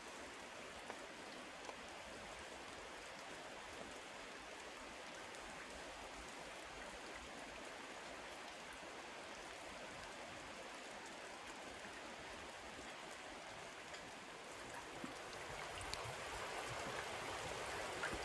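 Steady light rain falling on forest undergrowth: an even hiss with scattered small drips. About fifteen seconds in it grows louder, as drops fall into a puddle.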